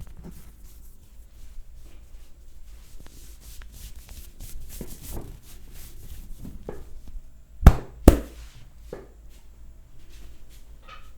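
Hands rubbing and kneading skin and hair during a head and back massage. About two-thirds of the way through come two loud sharp smacks close together, then a fainter one.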